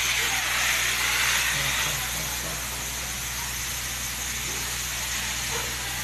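Fire hose spraying a jet onto concrete pavement, a steady hiss that is strongest in the first two seconds and then eases, over the steady low drone of a fire truck engine driving the pump.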